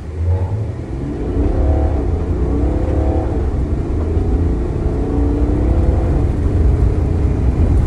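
Ineos Grenadier's turbocharged straight-six accelerating hard from near standstill, heard from inside the cabin. The engine note climbs and drops back at each automatic upshift, two quick shifts in the first few seconds, then a longer pull, over a heavy low rumble of tyres on the dirt track.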